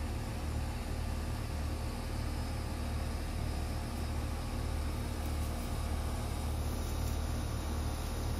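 Steady low machine hum of a running motor, even and unchanging.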